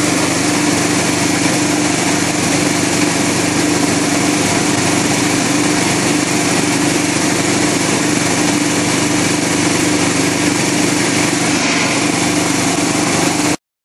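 Snack-pellet production machinery running steadily: a loud, even motor noise with a strong low hum. It cuts off suddenly near the end.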